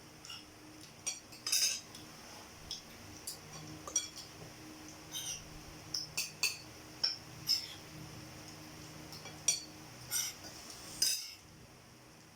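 Cutlery clinking against plates while eating spaghetti: a dozen or more short, irregular clinks.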